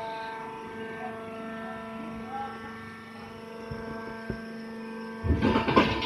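Hydraulic wood shavings baler running, its power unit giving a steady hum made of several held tones while it packs shavings into a bag. About five seconds in, a loud rushing noise takes over for most of a second.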